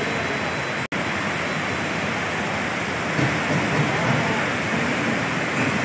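Steady rushing noise of floodwater and heavy rain. The sound drops out for an instant about a second in.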